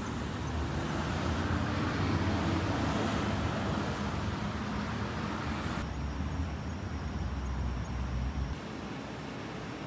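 Steady low rumble of road vehicles and traffic, with an even background hiss. The background changes about six seconds in, and the low rumble drops away near the end.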